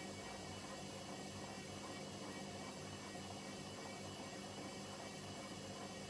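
Hoover H-Wash 300 washing machine running with a steady motor hum and whine.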